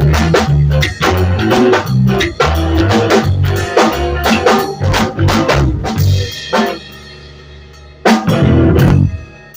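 Live band jamming, led by a drum kit playing a busy groove over a low bass line. About two-thirds of the way through the groove breaks off and a held note rings; near the end the band hits one loud accent together.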